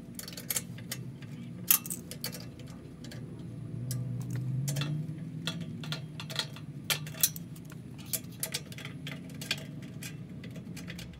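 Irregular sharp clicks and ticks of a screwdriver working the bolts on a light bar's mounting brackets, over a low steady hum that swells briefly about four seconds in.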